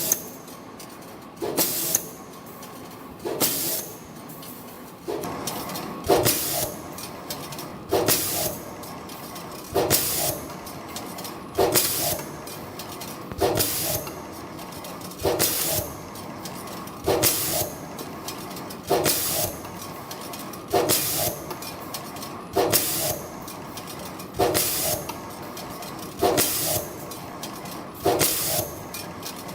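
CNC wave-spring coiling machine running in production, forming flat wire into wave springs in a steady repeating cycle: a running hum with a sharp hissing burst about every two seconds as each spring is completed.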